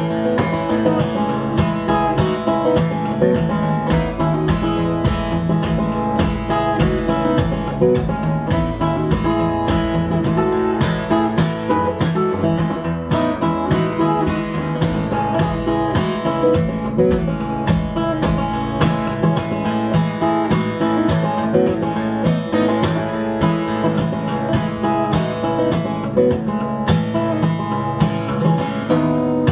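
Solo steel-string acoustic guitar playing a Christmas medley: a steady, busy run of plucked notes with a bass line under the melody.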